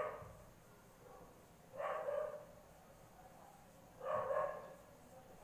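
A dog barking: three single barks about two seconds apart.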